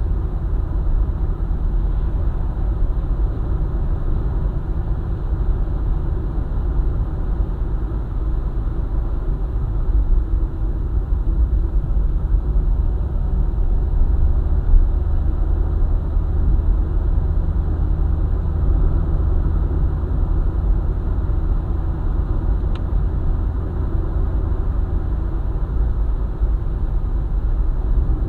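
Car driving on a highway: a steady low road rumble of tyres and engine, without change.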